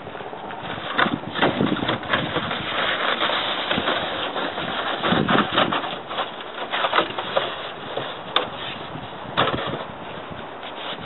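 Crunching snow and scrapes and knocks of a plastic sled as a child climbs a packed snow pile, a run of short sharp crunches over a steady noisy hiss.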